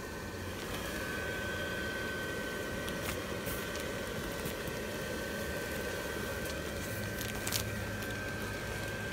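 Base blower fan of a 10-foot inflatable Christmas tree running steadily with a thin high whine, inflating the tree. A few brief crinkles from the nylon fabric as it fills, the sharpest near the end.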